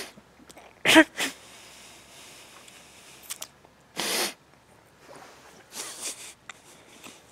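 A man crying, choked up: a short strangled sob about a second in, then sharp sniffing breaths and shaky breaths, the last ones muffled behind his hand.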